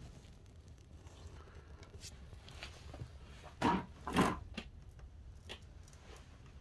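A few light knocks and clicks over a low, steady room hum, the two loudest coming about half a second apart a little past halfway.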